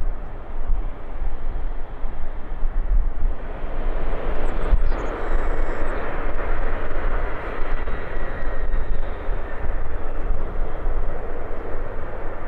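Jet airliner engines running at low taxi thrust: a steady, noisy rumble with a deep low hum underneath.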